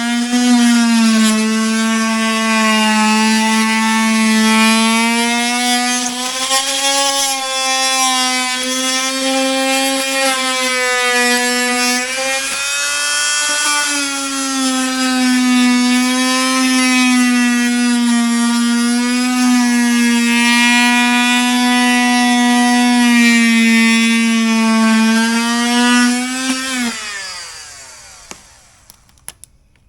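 Fein MultiMaster oscillating multi-tool running as it cuts out rotten wood from a door jamb, a steady whine that wavers slightly in pitch as the blade loads and frees. Near the end it falls in pitch as it is switched off and winds down to a stop.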